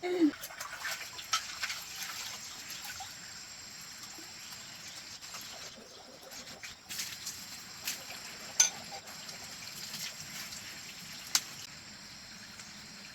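Water trickling and splashing as dishes are washed by hand, with scattered sharp clinks and knocks.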